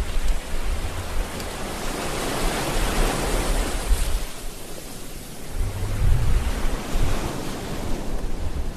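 Ocean waves breaking and washing in, a steady rush of surf that swells to a peak about three seconds in, with low rumbles underneath.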